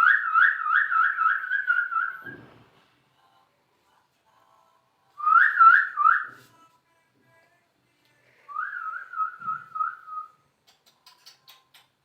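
Whistling in three warbling bouts, each a quick run of rising-and-falling notes: a longer bout of about two seconds, a short one about five seconds in, and another about two seconds long near the end.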